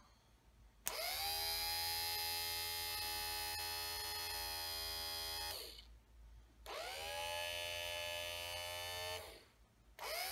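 1965–66 Thunderbird power window motor running on the bench: it switches on about a second in with a click and a whine that rises as it spins up, runs steadily for about five seconds and stops, runs again for about two and a half seconds, and starts a third time near the end. Freshly cleaned and greased, it spins freely instead of sticking.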